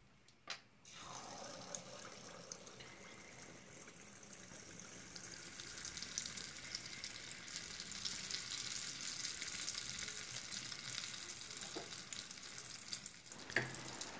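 Konda kavum batter sizzling and crackling as it deep-fries in a small pan of hot oil, the sizzle building and growing louder about halfway through. A short knock comes near the end.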